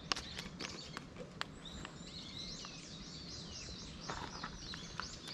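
Wild birds calling: a rapid run of short, high notes, each sliding downward, starting about two seconds in and lasting about three seconds, with scattered sharp clicks throughout.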